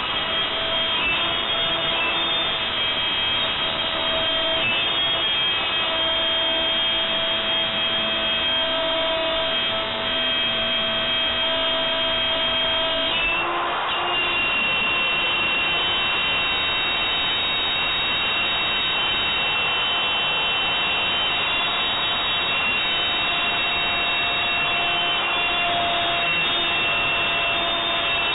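Router spindle on a homebuilt CNC router running steadily while it cuts MDF, with a high whine and a lower tone that wavers up and down over the first half. The sound shifts briefly about halfway through, then runs on steadily.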